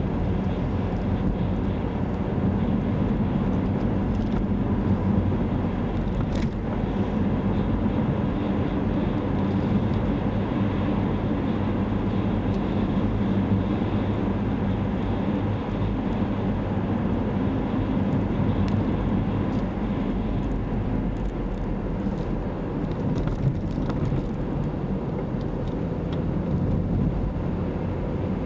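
Car engine and tyre road noise heard from inside the cabin, running steadily while driving at a constant speed.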